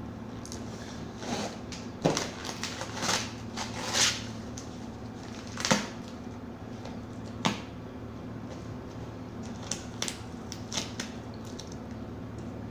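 Plastic toys and packaging being handled: scattered clicks, rustles and a few sharper knocks at irregular intervals over a low steady hum.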